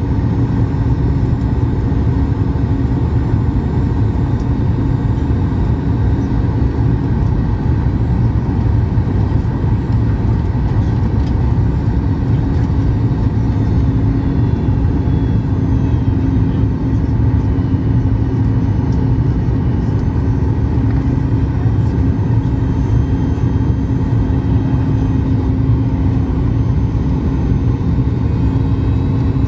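Steady in-flight cabin noise of a Boeing 737 MAX 8 airliner: an even rush of airflow over the fuselage with the low hum of its CFM LEAP-1B engines. The hum grows a little stronger about halfway through.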